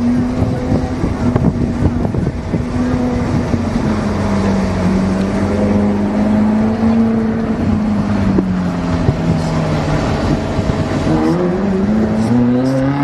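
Sports car engine working through a tight cone course: its note wavers through the turns, sinks as the car slows, then rises sharply in a hard acceleration near the end.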